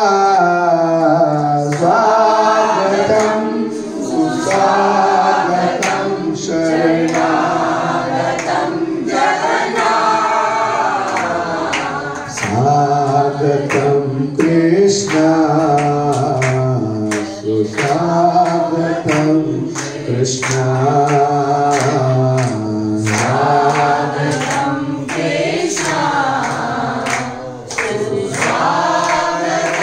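Congregational kirtan: a man leads a devotional chant welcoming Jagannath over a microphone and a group of voices sings it back, with hand clapping keeping the beat.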